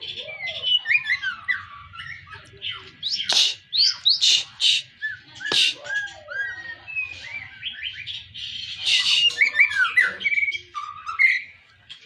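White-rumped shama (murai batu) singing a long, varied song packed with mimicked phrases (isian): a rapid, changing mix of rising and falling whistles, chirps and buzzy notes, with two short gaps and a couple of sharp clicks.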